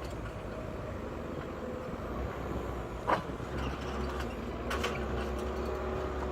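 Diesel engine of paving machinery running steadily, with a sharp clack about three seconds in and a lighter one near five seconds.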